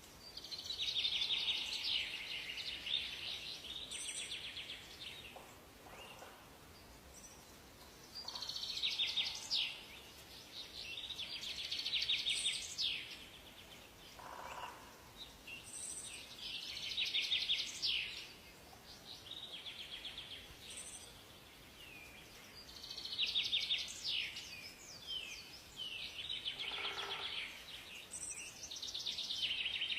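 Songbirds singing in a forest: rapid trilled song phrases of one to three seconds repeat every few seconds, with short high chirps between them, over a faint steady background hiss.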